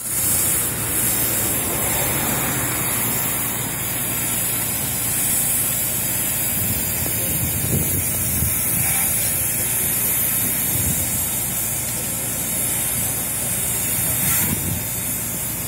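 Steady hiss and rush of a fire hose spraying water onto a burnt-out car's hot bodywork, sending up steam, with a low engine hum underneath.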